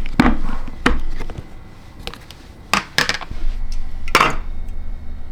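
Cutlery knocking and clinking against a dish: a string of sharp, uneven knocks spaced about a second apart.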